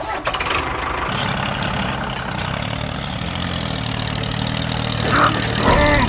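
Tractor engine starting about a second in and then running steadily.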